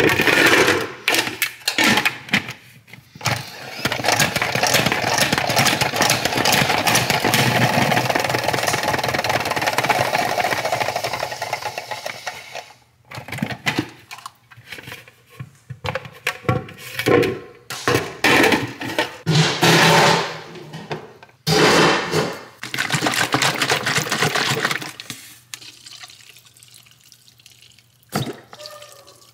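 Water running steadily for several seconds over cooked pasta in a plastic salad spinner basket. After it stops, the salad spinner is handled and spun in short spells, with knocks of plastic.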